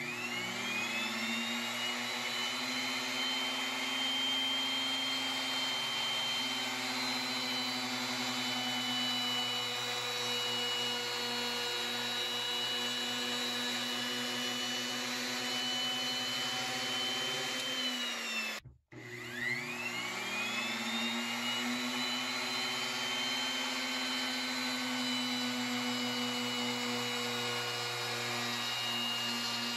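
Plunge router with a wing (slot) cutter bit starting and spinning up to a steady high whine while cutting the side slots for T-track in a plywood table. The motor stops briefly about 19 seconds in, then starts and spins back up for the next pass.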